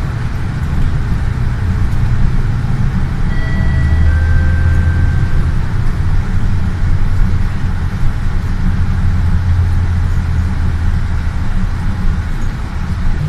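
Steady low rumble of a road vehicle, heavier through the middle, with a brief high-pitched whine about three to five seconds in.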